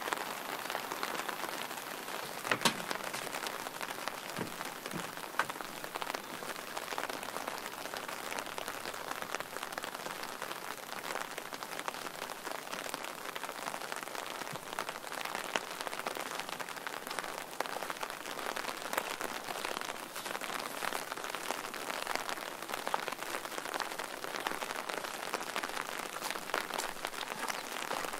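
Steady rain falling, with many small, sharp drop hits over an even hiss; one louder drop tap about two and a half seconds in.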